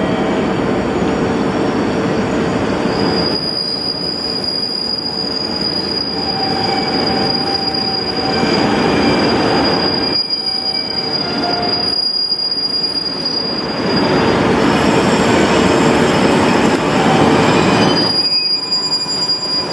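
Japanese diesel railcar train pulling in along a station platform, its running noise continuous, with a high steady squeal from about three seconds in until about fourteen and again near the end. The noise grows louder about fourteen seconds in as the cars pass close by.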